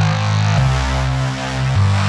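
Background electronic music with loud held bass notes that shift to a new pitch about every second, twice in this stretch.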